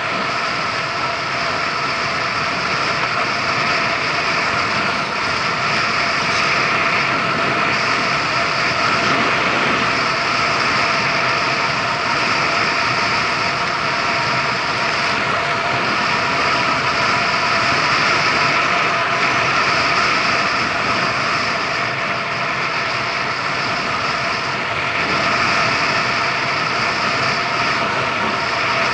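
Kymco Agility City 125 scooter's single-cylinder four-stroke engine running steadily at cruising speed, with road and wind noise.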